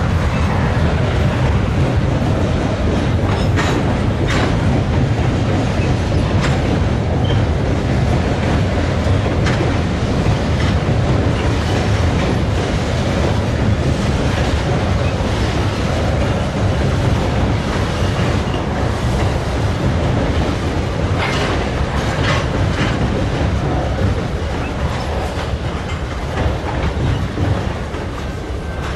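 Freight train rolling on the rails: a steady heavy rumble of the cars, with wheels clicking over rail joints here and there.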